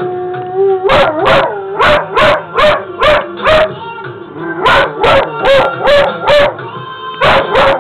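Pitbull-husky mix dog howling: a held howl, then a run of short yowls that bend up and down in pitch, about two to three a second, with a short break midway.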